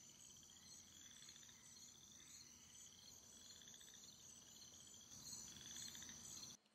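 Faint night chorus of crickets and frogs: a steady high trill with short rising chirps repeating every half second or so. It cuts off suddenly near the end.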